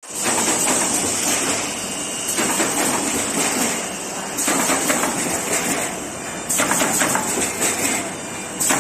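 Automatic corrugated-paperboard partition assembler machine running: a dense mechanical clatter of many quick clicks over a steady high hiss. The sound starts suddenly and shifts abruptly in loudness a few times.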